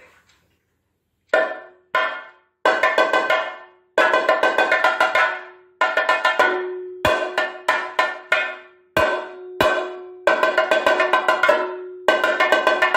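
Chenda, the Kerala cylindrical drum, beaten in fast rolls and sharp strokes that start a little over a second in, in phrases with short breaks between them. A steady ringing note from the drumhead sounds under the rolls.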